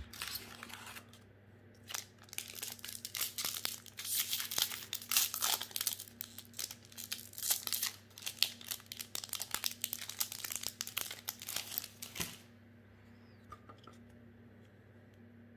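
Foil wrapper of a Magic: The Gathering booster pack crinkling and tearing as it is opened by hand and the cards are slid out. The crackling comes in quick uneven rustles and stops abruptly a few seconds before the end, leaving only a faint click or two.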